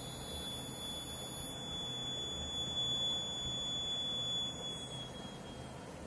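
Piezo buzzer of a DIY smoke-detector circuit sounding one continuous high-pitched tone that fades out near the end. It is the alarm, triggered by the MQ6 gas sensor detecting smoke.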